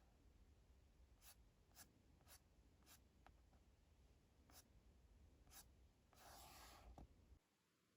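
Near silence: faint room tone with a few scattered soft clicks and a brief rustle about six seconds in.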